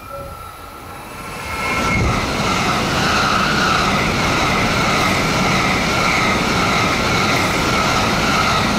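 Hokuriku Shinkansen E7/W7-series train on the Hakutaka service going past close by, a loud steady rush of air and wheel noise. It builds up over about a second early on, then holds level.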